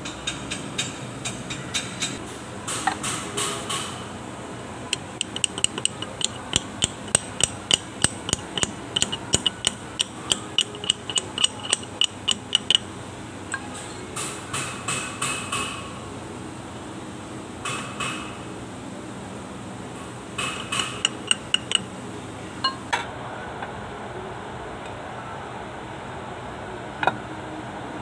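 Hammer blows on a steel pipe used as a driver, seating a bearing on a Kubota Bultra B16 tractor's front axle shaft. The blows come in runs, about two to three a second at the busiest stretch in the middle, and each gives a metallic ring. A single knock falls near the end.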